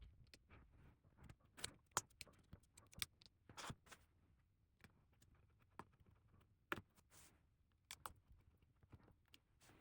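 Faint, scattered small clicks and ticks of tools and small metal parts while the little metal cover plate over the iPad Pro's display connectors is fitted.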